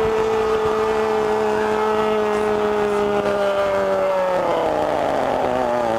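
A man's drawn-out football goal cry, "goool", held on one steady pitch. About four seconds in it slides downward and turns hoarse as his breath runs out.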